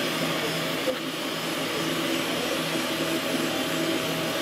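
Steady rushing hum of running shop machinery, with a low buzz underneath.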